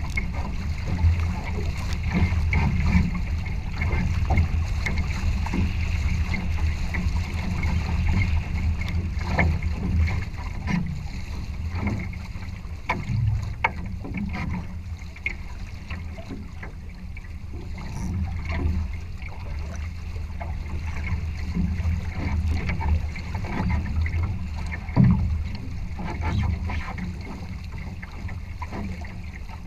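Water rushing and splashing along the hull of a small sailing trimaran under way, with a steady low wind rumble on the microphone and irregular slaps of water and spray.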